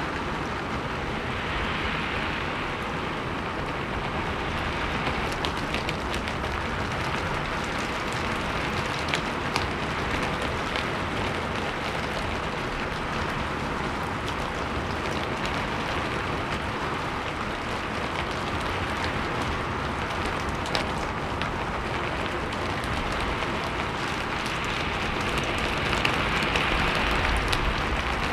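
Steady rain pattering on a roof and wooden surfaces, with scattered sharper drop ticks, swelling and easing a little with the wind, and a low rumble of wind building near the end.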